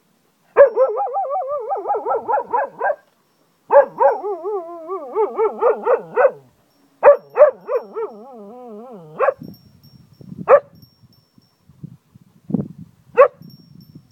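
Cocker spaniel howling: three long howls of two to three seconds each with a wavering pitch, then two short yelps near the end.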